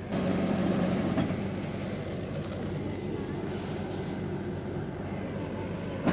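Rice combine harvester's engine running steadily, a continuous mechanical drone.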